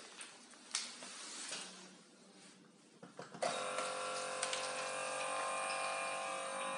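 Battery-powered electric water pump on a 19-litre water bottle switching on about halfway through and running with a steady hum, pumping water from its spout into a plastic cup. A few light clicks and knocks come before it starts.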